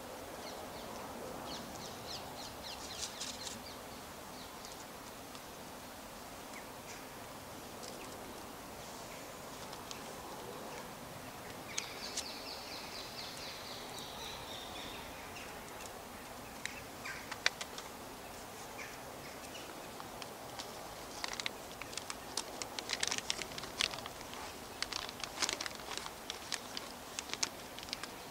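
Outdoor ambience of small birds calling over a steady background hiss. There is a short warbled song about twelve seconds in and a quick run of sharp chirps and ticks in the last several seconds.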